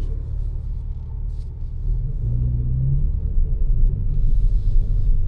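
BMW G82 M4's twin-turbo inline-six running at low speed, heard from inside the cabin as a steady low drone, with the engine pitch rising briefly about two seconds in. A short hiss comes near the end.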